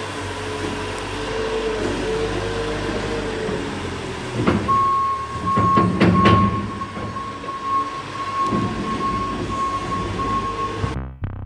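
Tractor engine running as it drives over and compacts a clamp of crimped grain, with a few clanks about five to six seconds in and a steady high-pitched whine from about then on. Music cuts in abruptly near the end.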